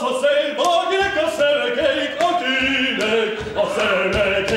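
A man singing a melody unaccompanied, in long held notes that step up and down in pitch.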